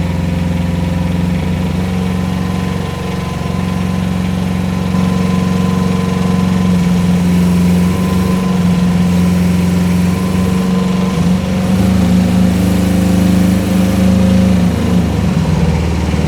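Diesel engine of a Rippa R10 mini excavator running steadily, its note shifting a few times as the hydraulics are worked during a hydraulic pressure test.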